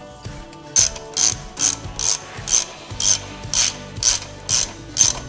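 Hand socket ratchet clicking in even strokes, about two a second, starting about a second in, as the nut is run down onto the rear axle's spherical ball joint stud.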